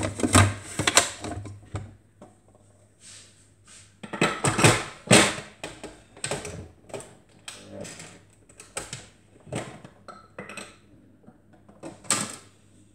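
Food processor chopping shrimp and spring onion in a series of short, irregular pulses, with clicks and knocks from its plastic bowl and lid; the loudest pulses come about four to five seconds in.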